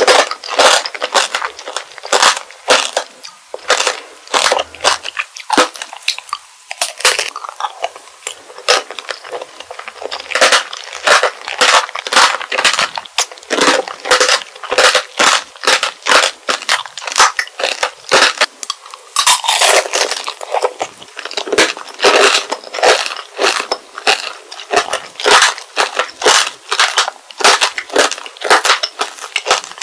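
Strawberry tanghulu being chewed close to the microphone: the hard glassy sugar shell on large King's Berry strawberries cracking and crunching between the teeth in rapid, crisp crackles.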